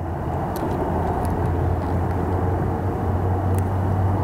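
A steady low hum over an even background rumble, with a few faint light ticks.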